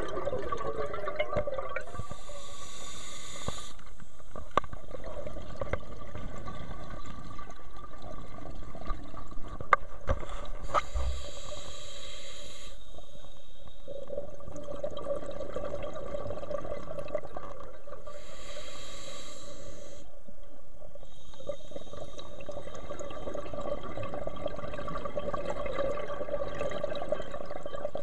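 Scuba diver breathing through a regulator underwater: exhaled bubbles rush out in four hissing bursts, about eight seconds apart, over a steady hum. A few sharp clicks come near the middle.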